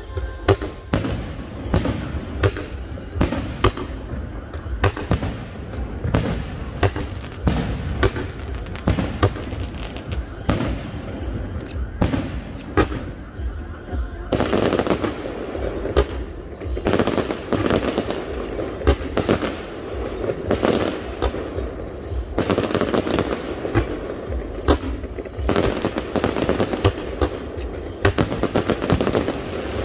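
Aerial fireworks going off: shells launching and bursting in a steady run of sharp bangs, one or two a second, with stretches of dense crackling from crackle stars.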